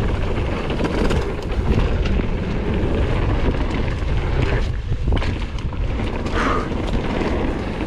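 Wind rushing over an action camera's microphone over the rumble and rattle of a Kona Process 153 full-suspension mountain bike rolling fast down a smooth dirt trail, with many small knocks from the bike throughout.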